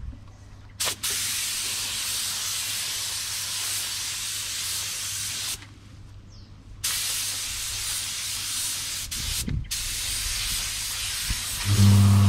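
Compressed-air paint spray gun hissing in three long passes, triggered on and off with short pauses between them, as paint goes onto the bumper. Near the end a loud, steady low motor hum starts.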